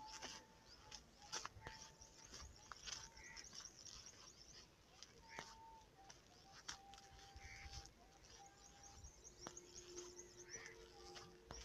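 Faint chirping of small birds with short whistled notes, and a few sharp clicks.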